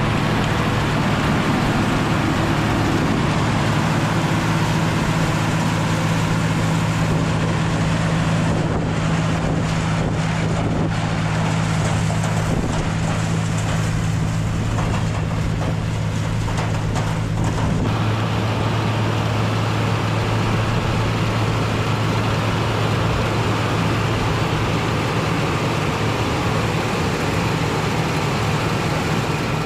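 Tractor engine running steadily with a low hum. One of its tones drops out about eighteen seconds in.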